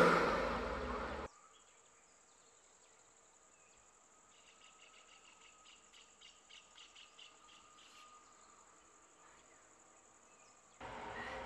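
A large vehicle passing close by, fading away until it is cut off abruptly about a second in. Then near silence with a faint run of quick high chirps for a few seconds, and a steady low rumble starting suddenly near the end.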